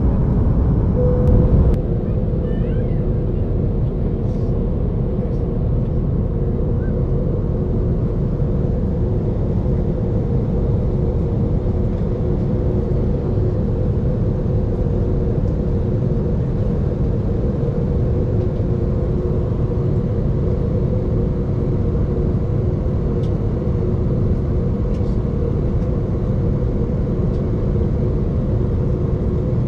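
Steady in-flight cabin noise of an Airbus A330-900neo heard from a window seat: a low rumble of Rolls-Royce Trent 7000 engines and airflow with two steady hum tones, easing down a little about two seconds in.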